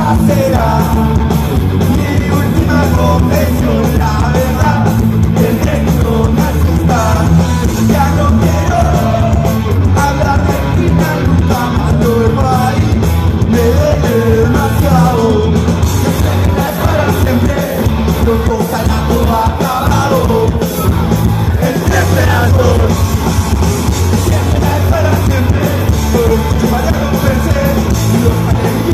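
Punk rock band playing live with electric guitars, bass and drums, and sung vocals over the top.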